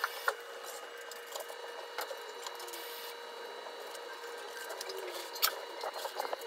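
Light ticks and scratches of a pencil writing on a textbook page and fingers on paper, over a steady faint hum, with a sharper tick about five and a half seconds in.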